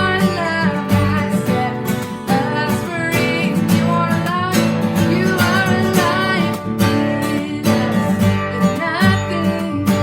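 Worship music led by a strummed acoustic guitar, with a melody line over a steady, rhythmic strum.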